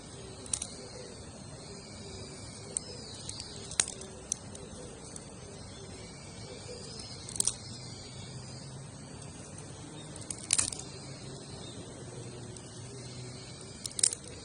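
Newly lit campfire burning, the wood giving off sharp, isolated pops and crackles every second or few seconds.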